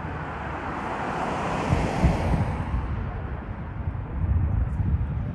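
Rushing vehicle noise with low rumbling, swelling to a peak about two seconds in and then easing off, mixed with wind buffeting the microphone.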